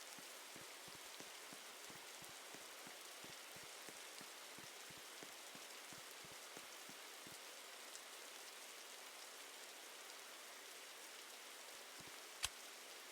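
Faint rain-like patter: a steady hiss with many small irregular ticks, the ticks thinning out after about seven seconds. A single sharp click about twelve and a half seconds in.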